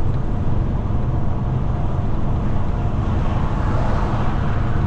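Semi-truck's diesel engine and road noise heard inside the cab while driving: a steady low drone, with a little more hiss about three seconds in.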